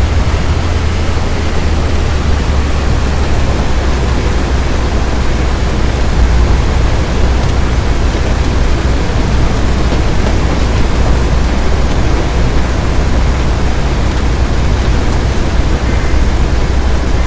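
Strong wind blowing steadily against the microphone, a loud rushing noise over a deep low rumble.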